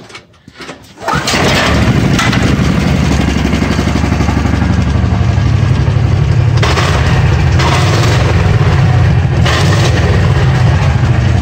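Honda 340cc single-cylinder engine pull-started with its recoil starter, catching about a second in and then running steadily. The start shows the newly installed pull starter works even though the battery is too dead for the electric starter.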